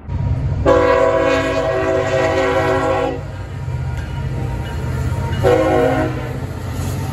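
CSX diesel locomotive's air horn sounding a long blast and then a short one, as for a road grade crossing, over the steady rumble of the passing locomotive.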